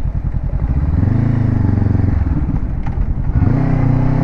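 Honda CBR500R's parallel-twin engine pulling away, its revs climbing, then a short break with a click near three seconds as it is shifted up a gear, and the revs climb again.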